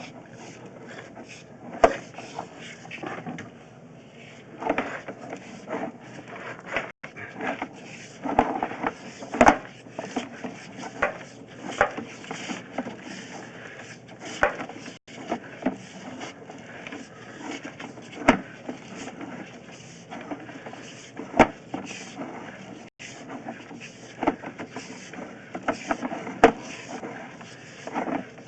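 Irregular knocks, clicks and scrapes as a drain inspection camera and its push cable are fed through the floor drain pipe, striking the pipe walls and bends.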